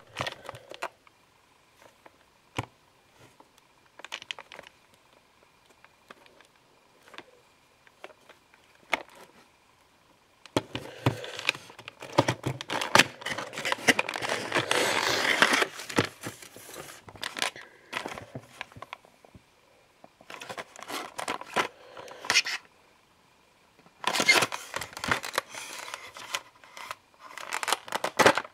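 Packaging being unboxed by hand: scattered clicks and taps for the first ten seconds, then long stretches of tearing and crinkling of cardboard and plastic wrap.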